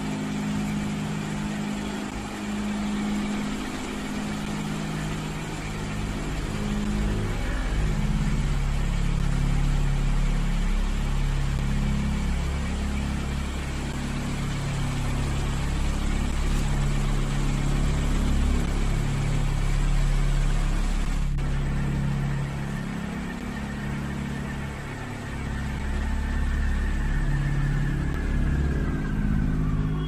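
Ceiling fan running at high speed while wobbling on its downrod: a steady rush of air and motor hum over an uneven low drone that shifts in pitch.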